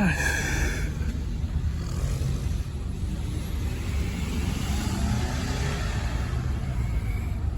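Volvo B5TL double-decker bus's diesel engine running with a steady low rumble, heard from inside the bus. A short, brighter higher-pitched sound comes in the first second.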